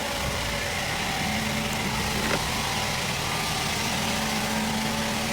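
A machine running steadily with a low, even hum, and a single click about two seconds in.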